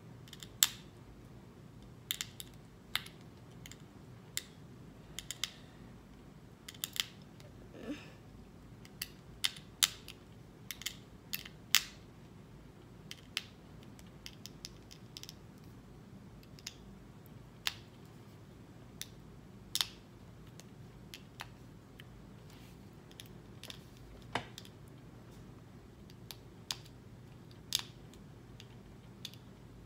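Small sharp clicks and ticks, coming irregularly, of a fingerboard tool working the screws and metal hardware of a fingerboard truck as it is unscrewed from the deck.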